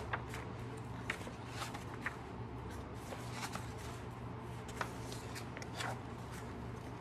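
Paper pages of a hardcover picture book being turned and handled: a scattering of soft rustles and page flicks over a low steady hum.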